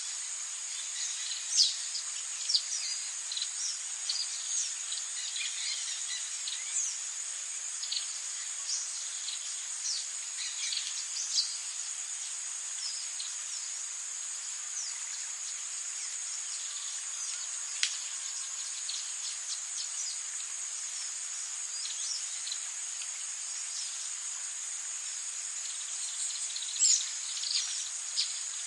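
Forest ambience: insects keep up a steady high-pitched drone while birds call in short, quick downward chirps. The chirps are busiest in roughly the first ten seconds and pick up again near the end.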